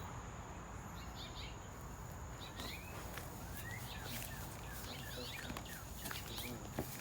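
Small birds chirping: many short, quick chirps sliding up and down in pitch, over a steady thin high tone and a low background rumble.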